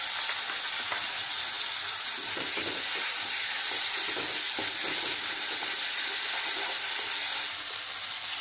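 Prawns and spice paste sizzling in hot oil in a kadai, a steady high hiss. A slotted metal spatula stirs and scrapes through them in the middle of the stretch.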